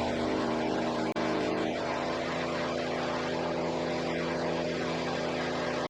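Hudson Patriot sawmill's engine running steadily, its pitch settling a little lower about a couple of seconds in.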